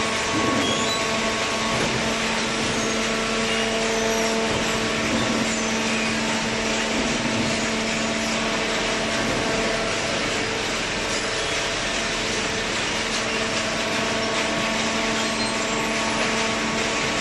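Paper and cardboard baler machine running, a steady mechanical hum of constant pitch over an even hiss.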